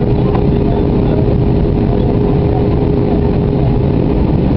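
Jet airliner cabin noise in flight: a steady rush of engines and airflow with a steady hum running through it.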